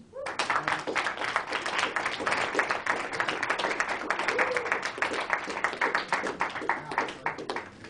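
A classroom of students applauding, a dense patter of many hands clapping that starts suddenly and dies away near the end.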